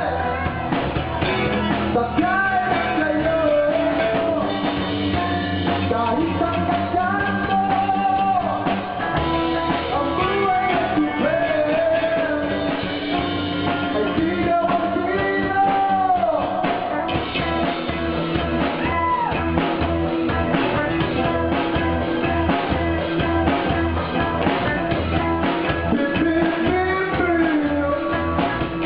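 A band playing a rock song: a singer's melody over a drum kit keeping a steady beat, with other instruments filling in below.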